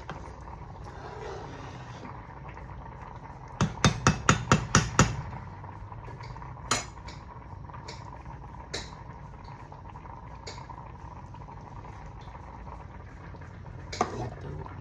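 A metal cooking utensil rapped quickly against a pot, about eight sharp taps in a second and a half, followed a little later by a single knock and a few fainter clinks.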